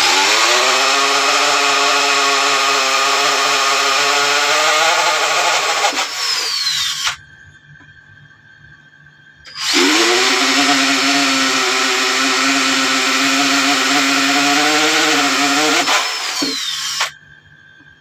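Handheld electric drill boring through an aluminium sheet in two runs of about seven seconds each, with a short pause between them. The motor's whine rises in pitch as it spins up and holds steady, then dips and falls away as each run stops.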